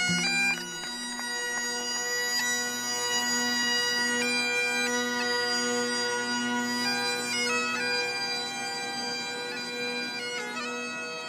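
Bagpipes playing a slow tune over a steady, unbroken drone.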